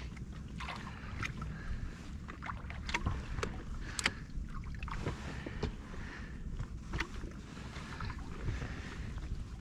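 Small waves lapping and slapping against the tubes of a drifting inflatable boat, with wind rumble on the microphone and scattered light knocks.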